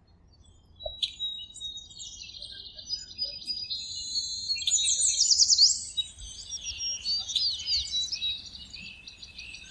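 Songbirds chirping and singing, several high calls overlapping and repeating quickly, growing busier about halfway through.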